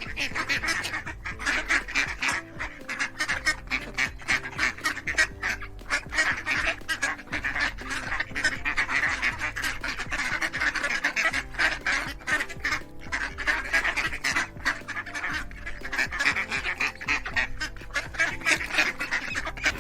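A flock of ducks quacking in a rapid, continuous chatter, over background music.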